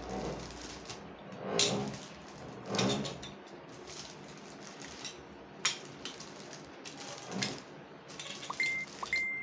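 Stainless-steel rolling pin rolling out dough on a table in long strokes, each a rushing swell. A few light clicks and knocks of the pin follow.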